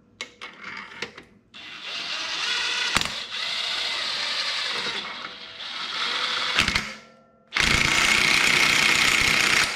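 DeWalt cordless impact wrench on the clutch nut of a CFMOTO CForce 400's CVT, running in three bursts to run the nut down and tighten it. The last burst, about two seconds long near the end, is the loudest.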